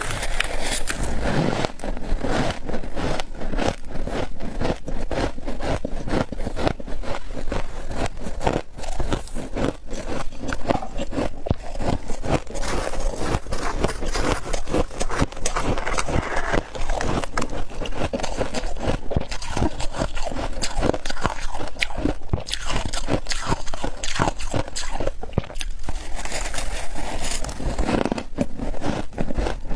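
Close-up biting and chewing of humidifier frost: a dense, continuous run of crunches, with some scraping as the frost is dug out.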